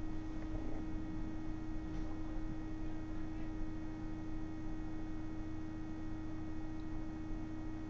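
Quiet room tone with a steady low electrical hum and no distinct sound events.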